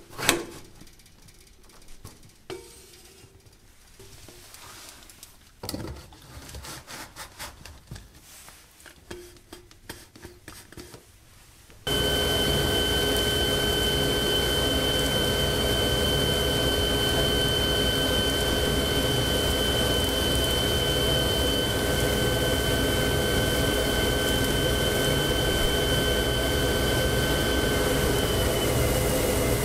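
Quiet clicks and knocks as a flexible dust-collection hose is fitted to a machine's dust port. Then, about twelve seconds in, the dust collection system comes on abruptly: a loud steady rush of air through the hose with a steady whine over it.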